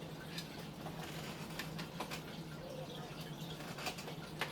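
Scattered light clicks and taps of computer parts being handled, over a steady low hum.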